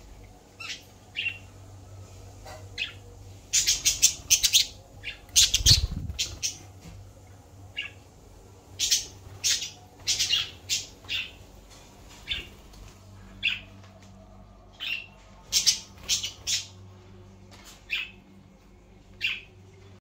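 Budgerigars chirping and squawking: many short, sharp calls in irregular clusters.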